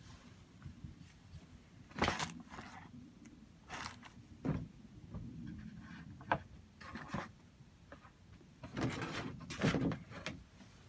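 Handling noise from two steel-bladed folding knives with wooden handles being held and shifted: a series of short scrapes and rustles, with one sharp click about six seconds in.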